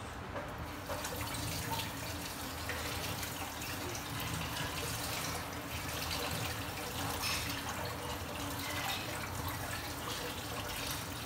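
Running water splashing and dripping, like a kitchen tap left on. It starts about a second in and holds steady.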